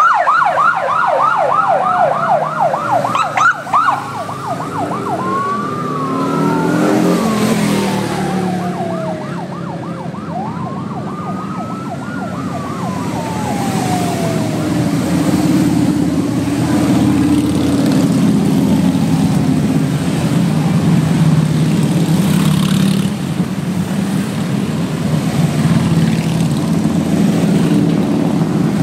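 A siren sounds first, sweeping rapidly up and down. It then changes to a few slower rising-and-falling wails that die away by about halfway through. Meanwhile a procession of motorcycle engines drones past, getting louder as the bikes reach the camera.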